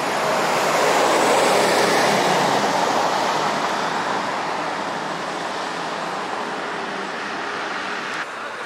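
Articulated city bus passing close by and pulling away, its engine and tyre noise loudest about a second in and then slowly fading into the surrounding street traffic.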